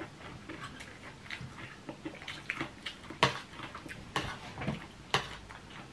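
Metal spoons and forks clinking and scraping on dinner plates, with scattered light ticks and three sharper clicks about a second apart in the second half.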